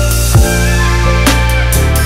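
Background music with a steady beat: an electronic-style track with deep bass, kick drum and cymbals.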